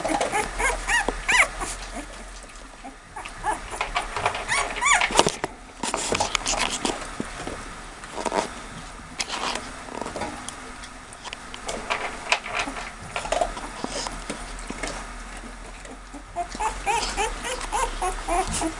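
Two-week-old American Staffordshire Terrier puppies whimpering and squeaking, many short high calls overlapping, busiest at the start and again near the end. Scuffling of the pups on their bedding runs under the calls.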